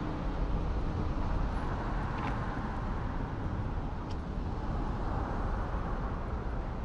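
Road traffic on a city street: a steady rumble of cars going by, with two brief faint clicks about two and four seconds in.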